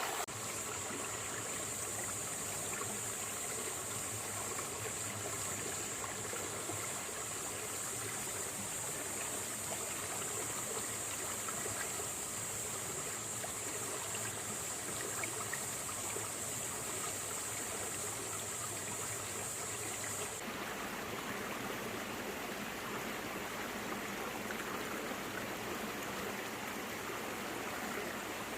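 Small stream flowing and trickling over rocks and stones, a steady rushing and babbling of water. A steady high hiss rides over it and cuts off abruptly about two-thirds of the way through, where the water sound changes character.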